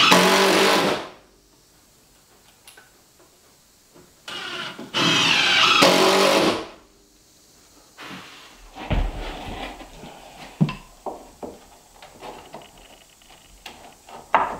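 Cordless drill driving screws into wooden trim: a short run at the start and a longer run of about two and a half seconds a few seconds later. Then scattered knocks and handling of the wood trim.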